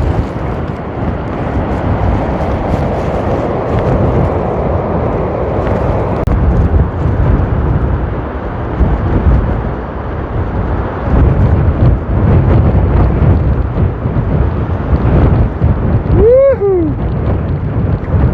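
Strong gale-force wind buffeting the microphone in uneven gusts, a loud rumbling rush. About sixteen seconds in, a short pitched cry rises and falls.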